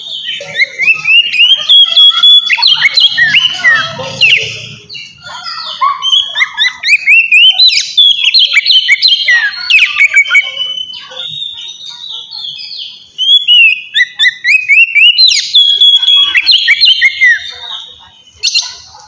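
Oriental magpie-robin (kacer) singing loudly in its clear, ringing ngeplong style: phrases of rising whistles and quick varied notes, broken by short pauses between phrases.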